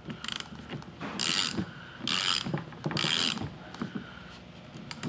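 Ratchet wrench turning a part of a power steering rack left and right, in about four short bursts of clicking and metal-on-metal grinding.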